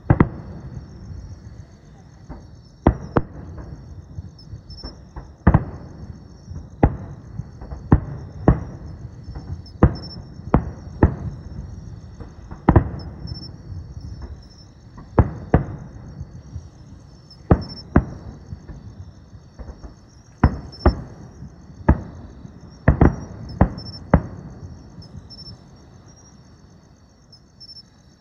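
Aerial fireworks shells bursting one after another, about twenty sharp bangs at uneven spacing, each with a rumbling tail. The bangs stop near the end. Insects chirp steadily and rhythmically throughout.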